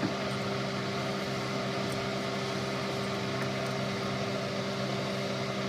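Steady mechanical hum with a few constant low tones over an even hiss, unchanging throughout.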